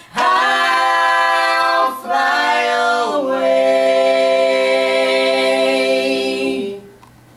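Gospel vocal trio singing the drawn-out closing chord of a hymn medley. The harmony steps down twice in the first three seconds, then is held steady and released about a second before the end.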